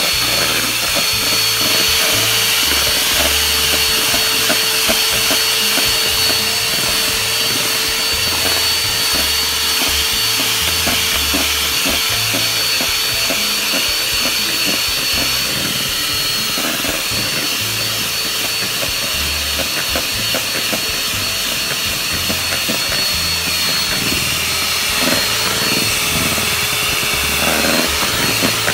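Signora electric hand mixer running steadily, its beaters whisking thick marble-cake batter in a stainless steel bowl, with a steady motor whine.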